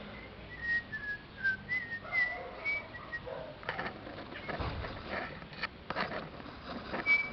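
A string of short whistled notes that step down in pitch and then climb back up, then several light taps and rustles, with one more whistled note near the end.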